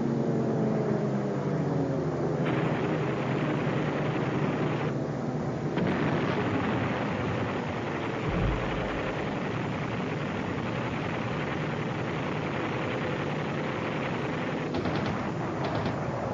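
Aircraft engines running under a dense wash of combat noise, with a deep boom about eight seconds in and rapid machine-gun fire near the end.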